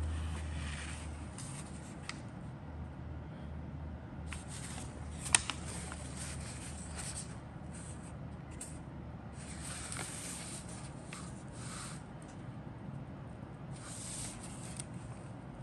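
Paper instruction sheet rustling as it is handled and shifted, in several separate stretches, with one sharp click about five seconds in.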